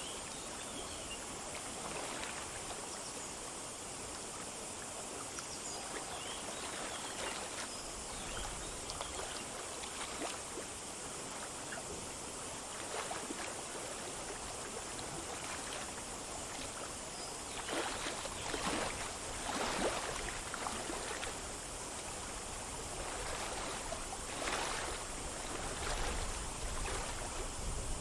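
A small forest stream running over stones: a steady rushing babble, with a few louder splashing gurgles past the middle and near the end.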